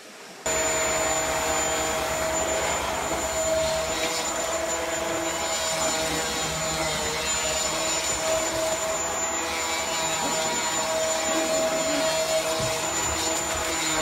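Upright vacuum cleaner running steadily, its motor giving a thin high whine over the rushing airflow. The sound cuts in about half a second in.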